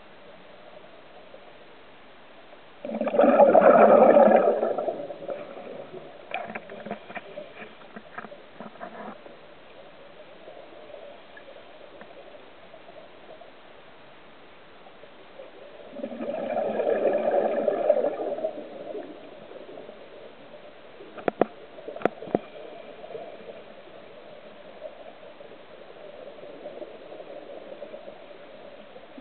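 Scuba diver's exhaled breath bubbling out of the regulator underwater: two gurgling bursts of about two seconds each, some thirteen seconds apart, with a steady underwater hiss between and two sharp clicks a few seconds after the second burst.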